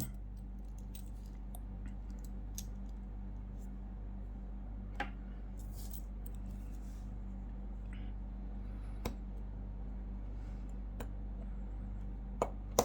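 Scattered small metallic clicks and taps as a watch bracelet's spring bar is worked into the lugs of an Omega Speedmaster case, over a steady low hum.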